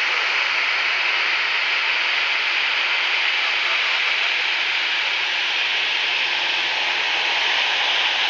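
Boeing 737's CFM56 turbofan engines running at taxi idle as the jet rolls by close up: a steady, even hiss-like whine.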